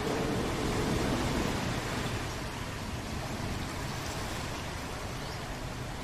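Steady rain hiss, with a low rumble swelling at the start and dying away over the first two seconds.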